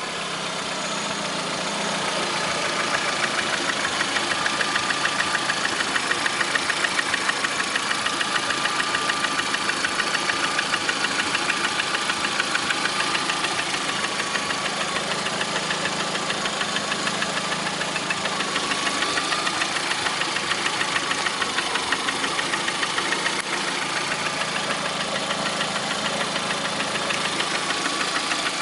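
Lada Priora's VAZ-21126 1.6-litre 16-valve four-cylinder engine idling with a regular, steady knock.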